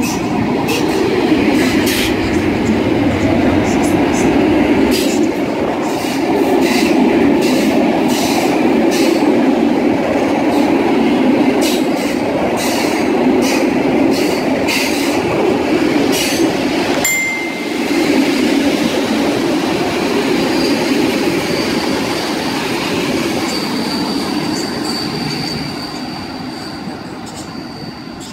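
An EU07 electric locomotive and its train of passenger coaches roll past at station-entry speed, with a steady rumble and many short clicks of wheels crossing rail joints. In the last third a thin, steady, high wheel squeal sets in as the train slows into the station. The sound fades as the last coach pulls away.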